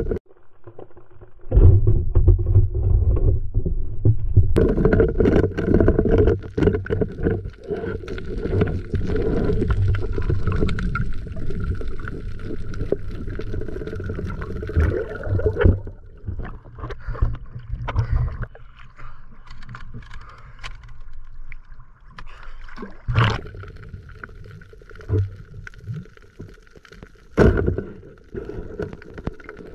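Water sloshing and rumbling around a spearfisher's underwater camera as the diver moves through the water. It is loud for the first half, then quieter, with a couple of sharp knocks near the end.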